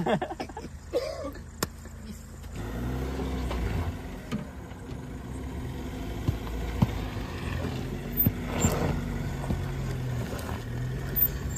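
Vehicle engine running at low revs, its pitch rising and falling, while a jeep stuck in mud is towed free. A few sharp knocks sound over it.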